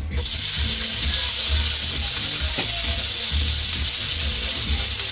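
A slice of rib steak sizzling steadily in a hot frying pan, the hiss starting suddenly as the meat is laid in.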